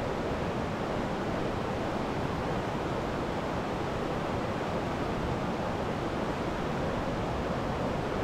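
Steady rush of creek water flowing over rocks.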